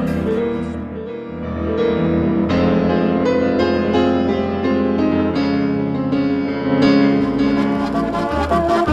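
Instrumental music: layered held chords that change every second or so, with no voice.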